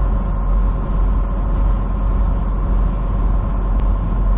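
Steady drone of a big truck driving, heard from the cab: low engine and road noise with a steady whine, and a faint hiss pulsing about three times a second.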